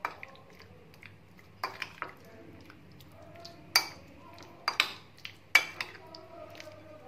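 Metal spoon stirring yogurt-marinated chicken pieces in a glass bowl, clinking sharply against the glass at irregular moments, about eight times. The loudest clinks come a little after the middle and again near the end.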